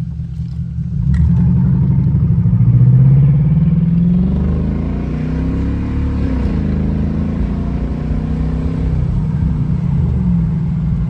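Jaguar XJR's supercharged V8 under hard acceleration. About a second in it gets louder and its pitch climbs for about two seconds, dips near the middle, then holds steady before rising again near the end. The driver finds it running much better after the injector swap for a cylinder 4 misfire.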